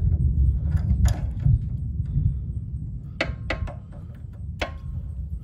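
Adjustable crescent wrench clinking on the bolts of a brass pressure washer pump head as they are fitted: a handful of sharp metallic clicks, most of them in the second half, over a steady low rumble.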